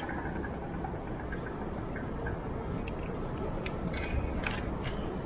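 Steady low rumble of city street noise with scattered sharp clicks and knocks, bunched together from about three seconds in.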